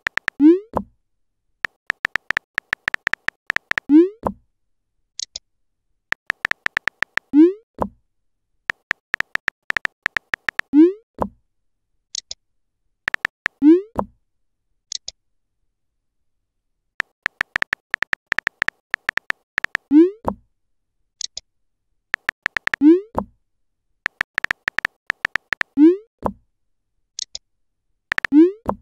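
Text-messaging app sound effects: bursts of rapid keyboard typing clicks, each ending in a short rising pop as a message is sent, repeating about every three to four seconds. A brief high chime sounds now and then as a message comes in.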